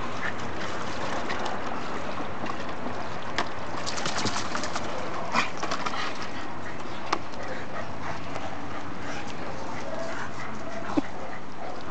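A dog splashing and pawing in the shallow water of a plastic paddling pool. A few sharp splashes and clicks come over a steady background hiss, with a quick cluster of them about four seconds in.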